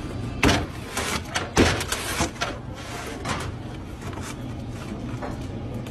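A handful of sharp knocks and scrapes from a cardboard pizza box and a wheel pizza cutter being handled, loudest in the first few seconds, over a steady low hum.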